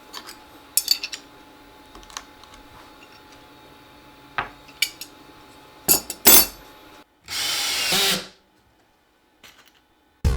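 Scattered clicks and knocks of tools and parts being handled. Then a power tool runs for about a second and stops.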